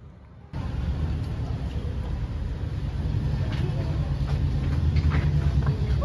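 Street ambience dominated by a steady low vehicle rumble, which starts abruptly about half a second in, with scattered knocks and clicks over it.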